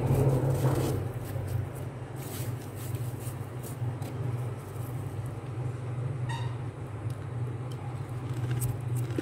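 A steady low hum, with soft rustling and a few faint crunches as a bare hand brushes over soft, flaky freezer frost.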